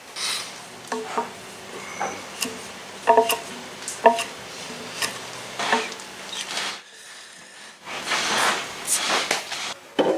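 A string of sharp taps and knocks on wood and metal, then two long swishing strokes of a Japanese hand plane (kanna) shaving across the timber near the end, trimming a wooden knot plug flush.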